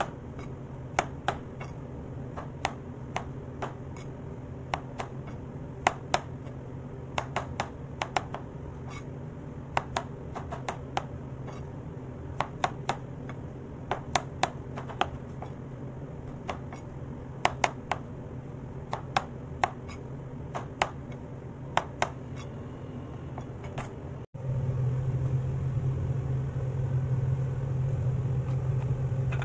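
Kitchen knife slicing button mushrooms on a cutting board: sharp, irregular knocks of the blade on the board about one or two a second, over a steady low hum. About 24 s in the knocks stop and a louder steady hum takes over.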